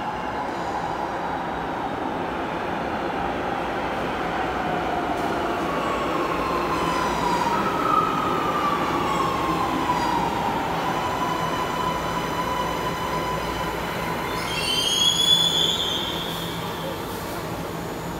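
Light-rail train pulling into an underground station and slowing: a steady rumble of wheels on rail and a whine that falls in pitch as it slows. A brief high squeal about fifteen seconds in is the loudest moment.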